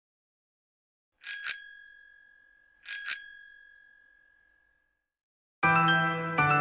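A bicycle bell rung twice, each time a quick double ding that rings on for about a second as it fades. About a second before the end, keyboard music with held chords begins.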